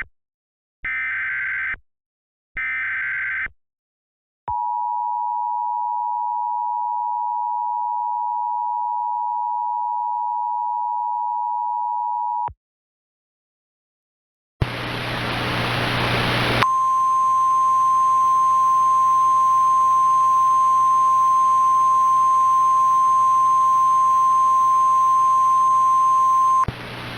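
Mock Emergency Alert System alert tones. It opens with the last two buzzing bursts of the SAME data header, then the steady two-tone EAS attention signal for about eight seconds. After a short silence, static with a low hum comes in, and a single steady tone sounds over it for about ten seconds before cutting off.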